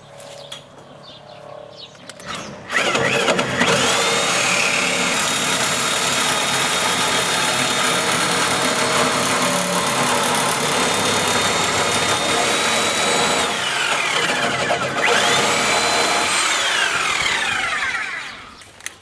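High-speed power tool cutting the cap off a pole: it spins up with a rising whine, runs steadily through the cut, winds down and spins up again briefly, then winds down near the end.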